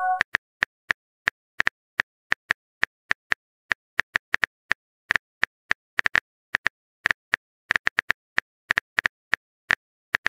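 Phone keyboard typing sound effect: short, sharp key clicks at uneven spacing, about four a second. At the very start, the tail of a sent-message chime dies away.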